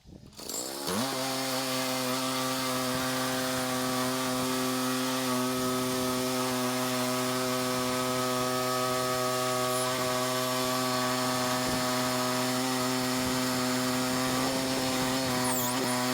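Portable bandsaw sawmill's engine revving up about a second in, then running steadily at high speed with an even, unchanging pitch.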